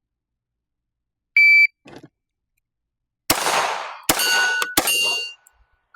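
A shot timer's start beep, then about two seconds later three quick pistol shots from a Smith & Wesson M&P 380 Shield EZ firing .380 ACP, under a second apart, the last two leaving a ringing tone.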